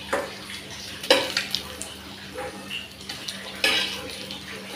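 Steel spatula scraping and clinking in a nonstick kadhai and against a steel bowl as a fried omelette is lifted out and the leftover egg scraped up, with a few sharp knocks, the loudest about a second in and another near the end.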